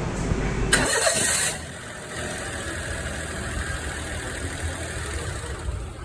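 Daihatsu Tanto's small three-cylinder kei-car engine running at idle after its water pump has been replaced, with a brief loud hissing burst about a second in.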